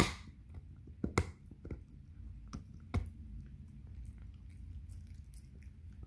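A Shiba Inu gnawing a hard yak-milk chew: teeth scraping and knocking on the chew in sharp clicks, the loudest right at the start and a few more in the first three seconds, over a low rumble.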